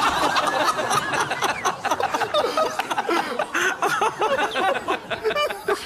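Laughter from a studio audience and the host, many voices at once.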